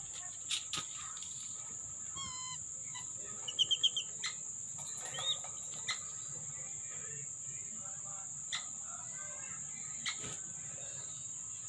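Steady high cricket chirring, with lesser whistling ducks giving a few short whistled calls, including a quick run of about five high notes about four seconds in. Scattered faint clicks.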